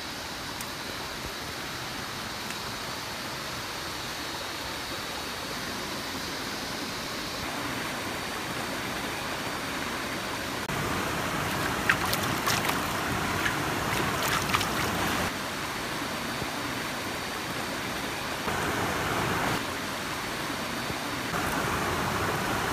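Shallow stream running steadily over rocks. Around the middle, water is scooped and splashed by hand several times in sharp bursts.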